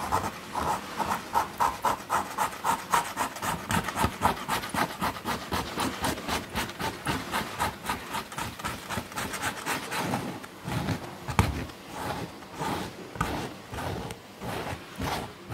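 Palette knife scraping softened old paint off a painting in quick repeated strokes, about three a second, turning slower and more uneven after about ten seconds. The paint has been loosened with green soap and hot water.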